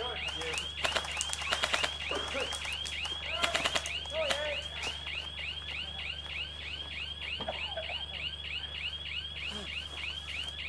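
Electronic alarm sounding a rapid, evenly repeated chirp, about four a second, without a break. Bursts of sharp clicks come through it about a second in and again about three and a half seconds in.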